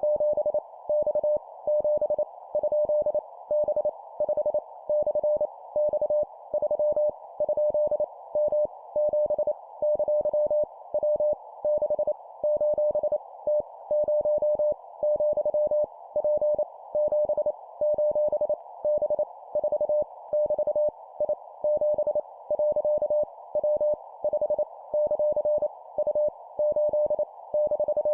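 Morse code (CW) practice tone at 25 words per minute: a single steady beep keyed on and off into dots and dashes, sending random letters, numbers and punctuation, with short pauses between characters.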